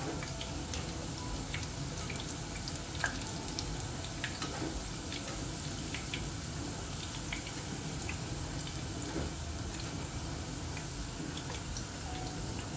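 Thin raw sweet potato slices deep-frying in hot oil: a steady sizzle dotted with many small pops and crackles.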